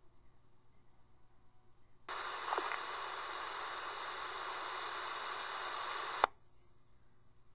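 Police scanner radio channel opening about two seconds in with a steady burst of static hiss and no voice, lasting about four seconds, then cutting off with a sharp click as the squelch closes.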